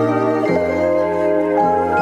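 Background music: a soft, tender tune with bell-like mallet notes over sustained chords, the notes changing about once a second.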